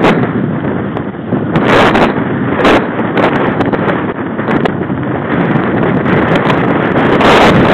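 Mountain bike rolling along a gravel road: constant wind rushing over the microphone and the rumble of tyres on gravel, with irregular sharp rattling knocks as the bike hits bumps.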